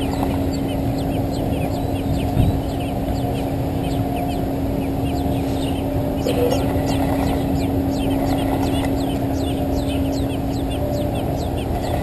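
American robin nestlings begging at the nest: rapid thin, high calls, each a quick falling sweep, growing denser about halfway through. Under them runs a steady low hum and rumble.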